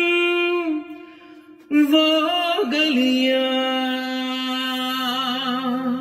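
Male voice singing a Hindi film song line: a long held note breaks off under a second in, and after a short pause he starts the next phrase, "woh", turning it through a few quick ornaments before settling into a long held note with a slight waver. A faint low hum joins near the end.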